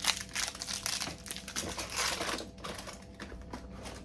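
Plastic packets of frozen food rustling and crinkling as they are handled and moved, busiest in the first two seconds or so and lighter after.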